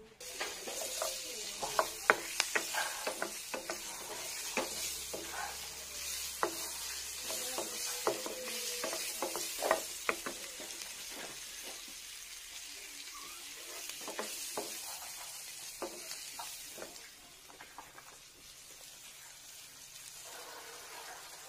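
Onion pieces frying in melted butter in a pan, sizzling steadily, with the clicks and scrapes of a wooden spoon stirring them. The sizzle and the stirring ease off over the last few seconds.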